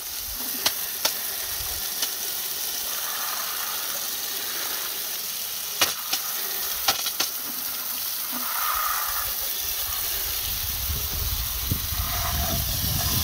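Garden hose spray nozzle jetting water onto an aluminium alloy wheel and tyre, rinsing off wheel cleaner: a steady hiss of spray with a few sharp ticks in the first half, growing fuller and lower near the end.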